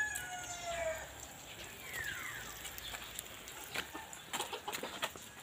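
Chickens calling: a rooster's crow trails off in the first second and a short falling call comes about two seconds in. Scattered light footsteps on stony ground follow in the second half.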